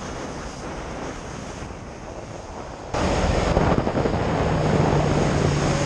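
Motorboat engine running with wind buffeting the microphone and water noise; the noise jumps louder about three seconds in, and a steady low engine hum comes through near the end.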